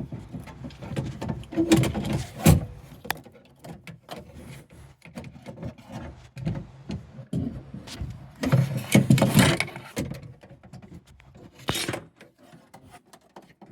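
Window regulator assembly being worked into a car door's cavity by hand: scattered metal clicks, knocks and scrapes, with a longer run of scraping about two-thirds of the way through.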